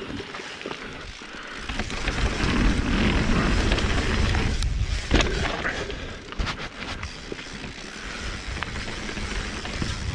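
Mountain bike rolling fast downhill on a dirt trail: rushing wind on the microphone and knobby tyres on loose dirt and stones. It grows louder about two seconds in, with a few sharp knocks as the bike rattles over bumps.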